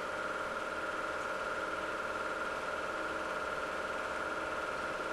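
8 mm film projector running: a steady mechanical whir with a constant pitched hum.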